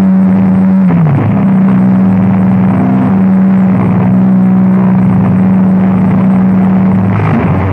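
Loud drone music: one steady low tone held over a dense, grainy wash of noise with little treble. The tone bends down briefly about a second in and gives way to a lower drone near the end.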